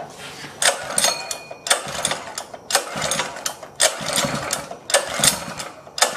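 Harbor Freight Greyhound 6.5 hp single-cylinder OHV engine, a Honda GX200 copy, being pull-started on full choke. About six quick recoil-starter pulls come roughly one a second, each a short rasp of rope and cranking engine. It tries to fire but won't keep running, which the owner puts down to stale gas.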